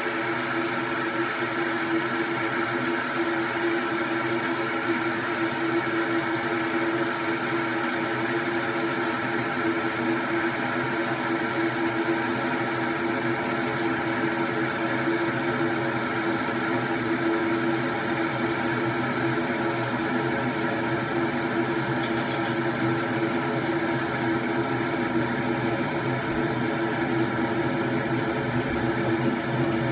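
Electric kettle heating water towards the boil, giving a steady hum and hiss that holds at the same level throughout.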